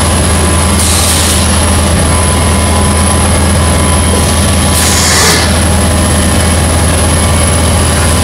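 Steady loud drone of a running paper-pulp egg tray production line: pulping and pump motors, with short hissing bursts about four seconds apart.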